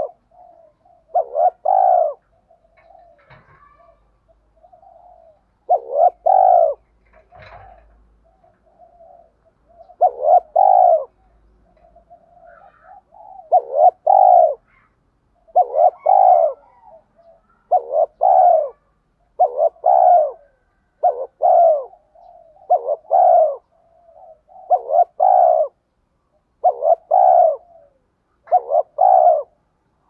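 Spotted dove cooing very close up: short coos repeated, a few seconds apart at first, then steadily about every second and a half from about a third of the way in, with fainter notes between them.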